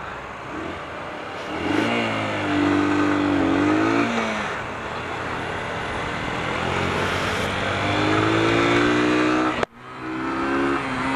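Sinnis RS125's Yamaha YBR125-based 125cc single-cylinder four-stroke engine accelerating under way. Its revs climb, drop at a gear change about four seconds in, and climb again, with steady wind noise on the helmet microphone. The sound cuts out for an instant near the end.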